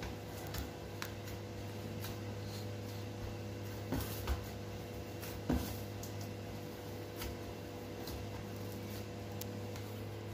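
Soft, stiff maida dough greased with ghee being kneaded and pressed with the knuckles in a steel plate: faint squishes and light knocks, a few of them louder around the middle, over a steady background hum.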